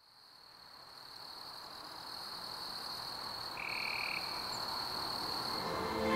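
Forest ambience with frogs calling, fading in from silence. A steady high-pitched note holds throughout, and one short call stands out a little past halfway.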